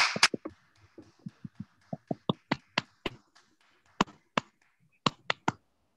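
Scattered hand claps that thin out from quick clapping into separate single claps, with a brief run of three near the end.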